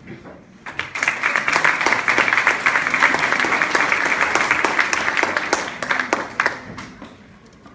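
Audience applauding: a burst of hand clapping that starts about a second in, holds for several seconds and dies away near the end.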